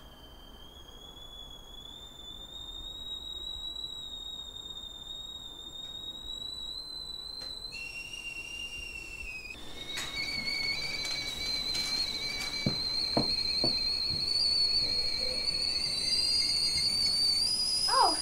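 Copper stovetop kettle whistling at the boil: a shrill, steady whistle that slowly climbs in pitch and grows louder. About ten seconds in it jumps to a higher, louder note.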